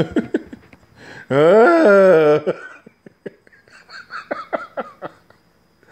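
A man's drawn-out vocal sound, rising then falling in pitch, lasting about a second, followed by a few short, quieter vocal sounds.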